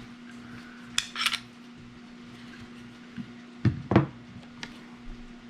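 Handling noise of a Glock 43X pistol and its clamshell rail parts: a quick cluster of sharp clicks and clinks about a second in, then two heavier knocks a little before four seconds in.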